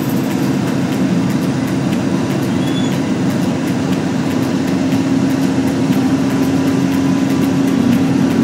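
Steady engine and tyre noise inside a vehicle's cabin cruising at highway speed, with a constant low hum under it.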